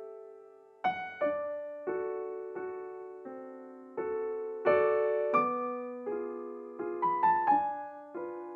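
Background solo piano music: a slow, gentle melody of struck notes that ring and fade, about one or two a second, with a brief quicker run of notes near the end.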